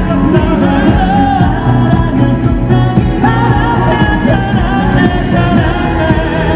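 Live pop ballad: a male singer's voice over the band and backing track, loud through the arena's PA.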